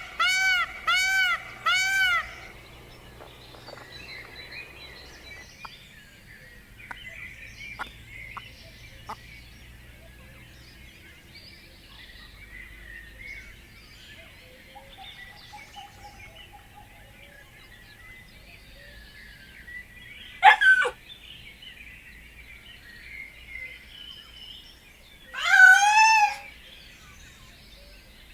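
Birds chirping and twittering. It opens with about two seconds of quick, evenly repeated calls, after which faint chatter runs on. A short sharp call comes about twenty seconds in, and a louder call that rises and falls in pitch comes near the end.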